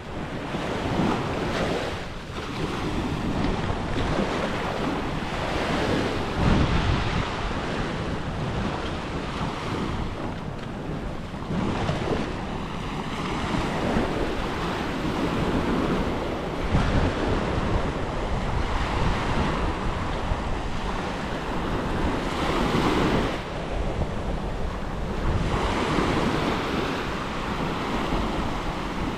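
Small surf breaking and washing up the shore, swelling and easing every few seconds, with wind rumbling on the microphone.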